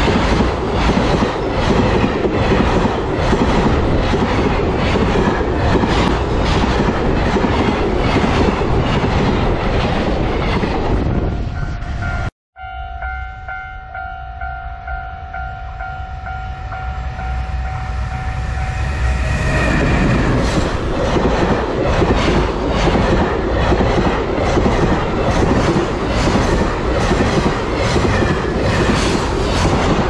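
A freight train of container wagons passing close by, wheels clattering rhythmically over the rail joints. It breaks off abruptly about twelve seconds in. After that, a level-crossing warning bell rings steadily for several seconds as the next container freight rushes in, and its wagons clatter past to the end.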